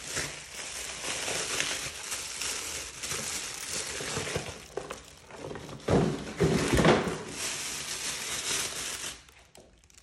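Plastic packaging crinkling as hands unwrap a camera from bubble wrap and a clear plastic bag, in a run of rustles. The loudest crinkling comes about six to seven seconds in.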